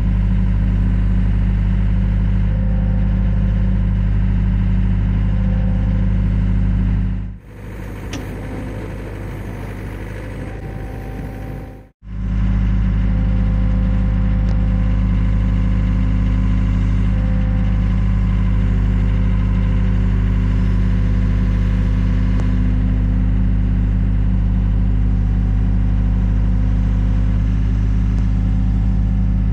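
Excavator engine running steadily under load, heard from inside the operator's cab, with a quieter stretch of a few seconds in the middle.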